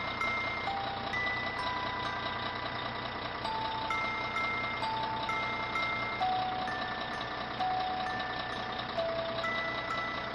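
A steady vehicle engine sound effect for a toy pickup truck driving, under a simple background melody of held notes.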